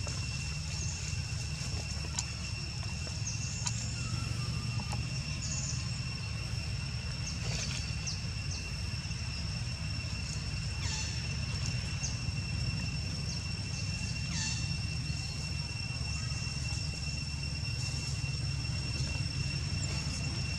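Outdoor ambience: a steady low rumble under a constant high-pitched whine, with scattered short high chirps every second or two.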